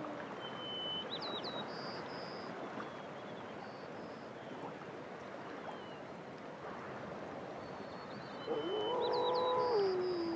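Gray wolf howling once near the end, a single long note that rises, holds and slides down, over a steady outdoor hiss.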